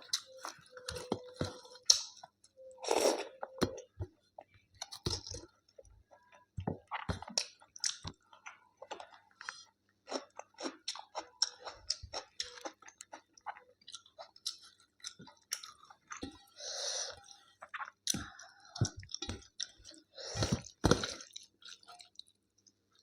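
A person chewing food, with many irregular short mouth clicks and a few louder bites.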